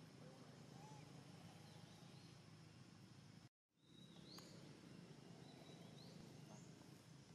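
Near silence: faint outdoor ambience with a few faint, short, high chirps. The sound drops out completely for a moment a little past halfway.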